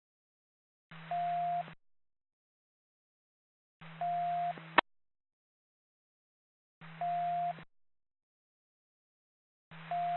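Police radio scanner sounding a short steady beep four times, about every three seconds, each beep inside a brief burst of radio static and hum. A sharp click ends the second burst.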